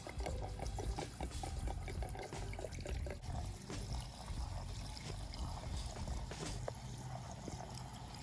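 Gasoline being poured into a Suzuki GSX-R600's fuel tank without a funnel, trickling steadily into the tank.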